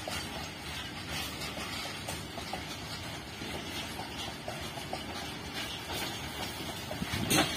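Freight train of open-top steel wagons rolling past: a steady rumble with wheels clicking over the rail joints, and one louder knock near the end.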